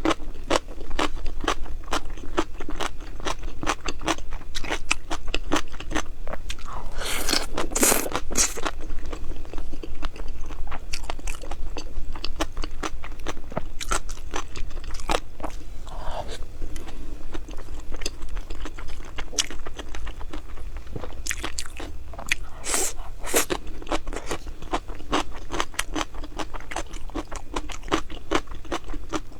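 Close-miked chewing and biting of crunchy food: a fast, continuous run of crisp crunches, with a few louder, longer bites about a quarter of the way in and again about three quarters of the way in.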